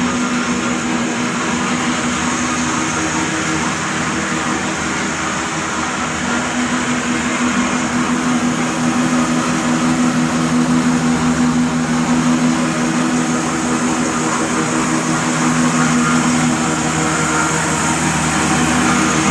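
Desi diesel oil engine running steadily at a constant speed.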